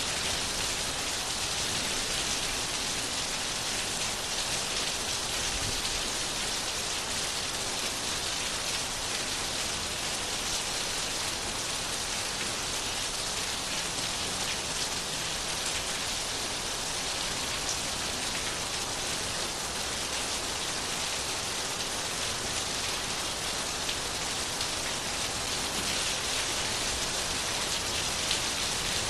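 Steady rain falling, a dense even patter of drops hissing without a break.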